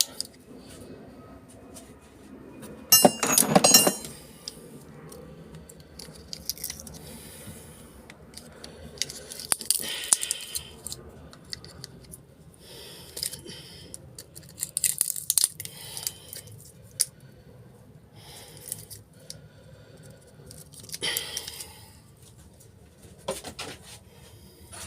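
Metal parts of a microwave being worked loose and handled: intermittent rattles, scrapes and clinks. The loudest bursts come about three seconds in, with more spread through the rest.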